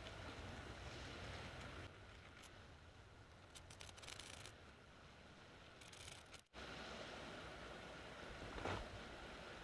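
Very faint rustling and light crackling of dry wood shavings and twigs being handled and placed, over a steady low background noise.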